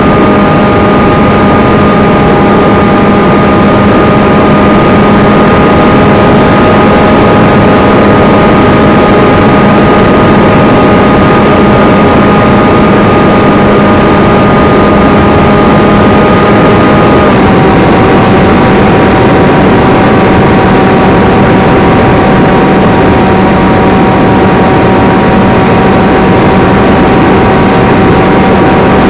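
Onboard sound of an FT Versa-based FPV flying wing in flight: a steady hum from its motor and propeller under heavy wind noise on the camera microphone. About two-thirds of the way through, the motor's hum drops a little in pitch and holds there.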